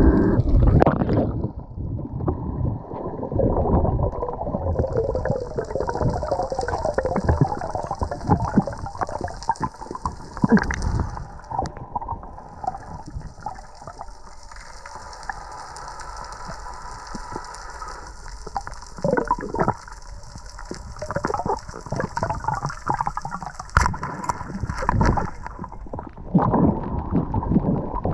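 Underwater water noise as a freediver swims: muffled rushing and gurgling with irregular knocks and thumps. A thin steady hiss comes in about five seconds in and stops a few seconds before the end.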